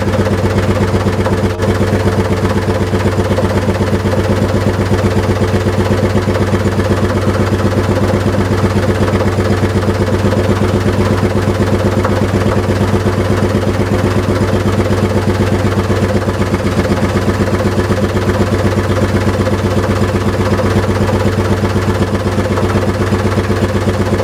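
1950 Seffle 10 hp two-stroke hot bulb engine running steadily in the boat, with an even, rapid beat of firing strokes that holds the same pace throughout.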